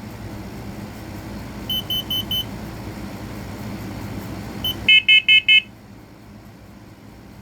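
Smoke/carbon monoxide alarm sounding its carbon monoxide pattern, four quick high beeps in a group: a fainter group about two seconds in, then a much louder group of four about five seconds in. A steady background hiss drops away as the loud group starts.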